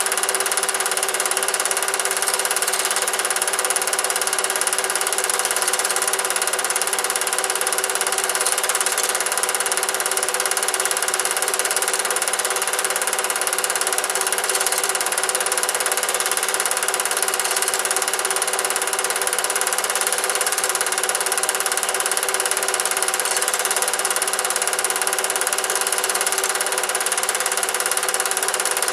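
Cine film projector running, a steady mechanical whir with several constant tones and no change in speed.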